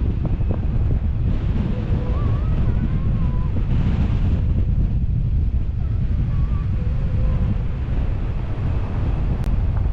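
Wind buffeting the microphone, a loud steady low rumble, with faint wavering tones in the background now and then.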